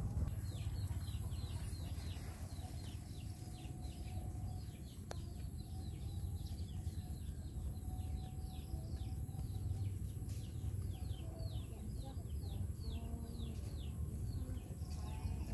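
Chicks peeping: a quick, steady series of short, high falling peeps, several a second, over a steady low rumble.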